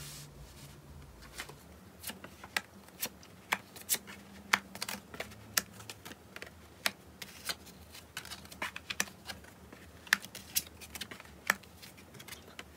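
Tarot cards being drawn from the deck and laid down one by one on a cloth reading mat: irregular sharp clicks and taps of card stock, about two a second.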